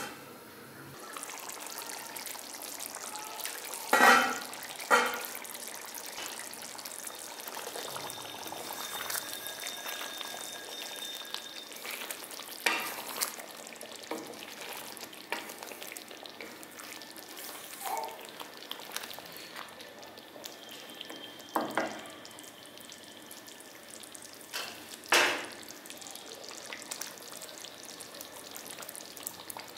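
Thick chicken curry sizzling and simmering in a pan while a spatula stirs and scrapes through it. Several sharp knocks against the pan, the loudest about four seconds in.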